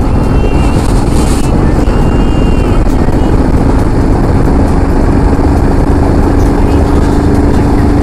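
Motorcycle running steadily under heavy wind noise on the microphone, with a constant engine hum beneath it. A few short high tones sound in the first three seconds.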